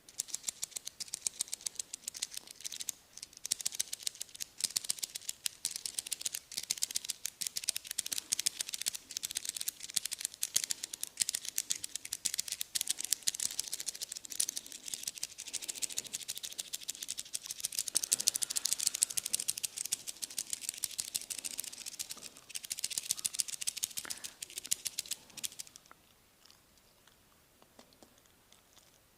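A massaging barber's hands working on the client, close to the microphone, make a dense, fast, crisp crackling that stops near the end.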